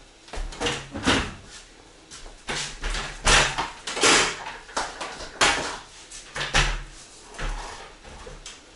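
Irregular knocks, bumps and short scrapes from hands-on renovation work, as panels and tools are handled and pressed against a ceiling and wall.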